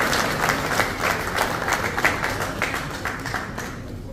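Audience applauding, with many hands clapping, dying away near the end.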